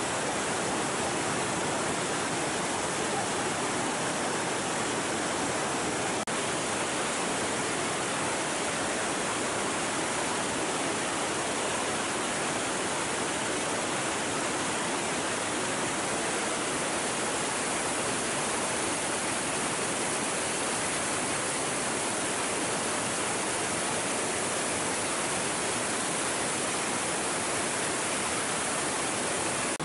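Steady rush of a shallow river's current flowing past.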